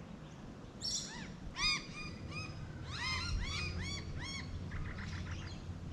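Several birds calling in a quick flurry of short, arched chirps, many overlapping from about a second in and thinning out near the end. These are birds chasing a cat.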